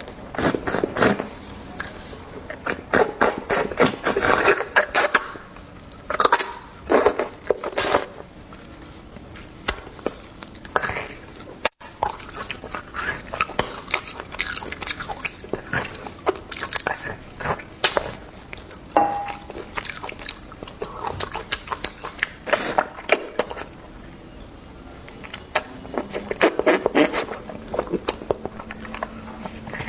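Close-miked eating of bone marrow: wet chewing, biting and smacking in bursts of rapid clicks, with short pauses between mouthfuls.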